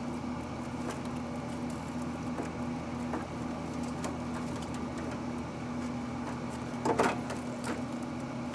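Pit Boss pellet grill's fan humming steadily. About seven seconds in there is a short clatter as the lobsters are turned over on the grate.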